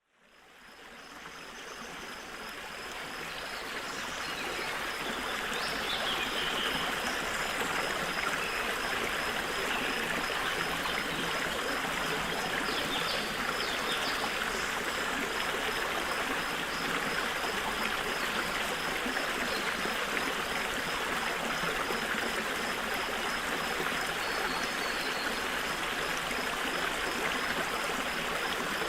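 Gentle stream flowing steadily, a continuous rush and trickle of running water that fades in over the first few seconds.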